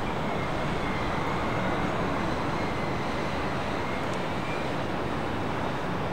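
Jet airliner engines running steadily: a constant rush with a faint high whine.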